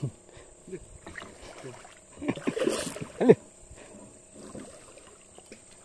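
Small fishing boat on the water: scattered knocks and bumps against the hull and water moving. A louder flurry of bumps and scrapes comes about two to three and a half seconds in.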